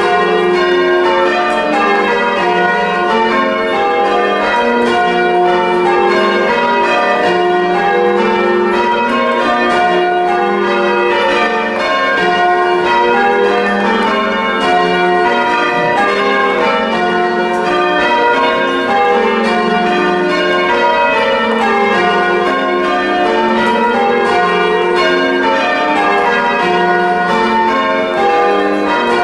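Church bells being change rung to plain hunt, bell after bell struck in an even, unbroken stream with each stroke ringing on over the next.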